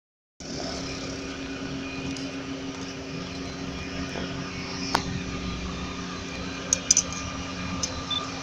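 BNSF ES44C4 diesel locomotive running with a steady drone of several held tones. A sharp click comes about five seconds in, and a few more near seven seconds.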